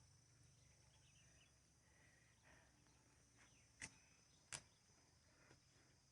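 Near silence: quiet outdoor ambience, with two faint sharp clicks under a second apart about midway through.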